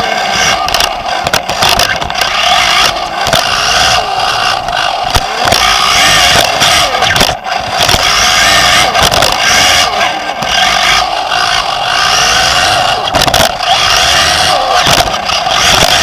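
Onboard sound of a Team Associated B5M 2WD electric RC buggy racing, its Nosram Comet brushless motor and drivetrain whining up and down with the throttle. Frequent sharp knocks from bumps and jump landings, over a steady buzz from other cars on the track.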